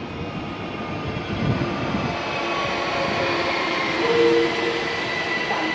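ÖBB Cityjet class 4744 (Siemens Desiro ML) electric multiple unit running past: rumble of its wheels on the rails with several steady whining tones, growing louder as it draws level.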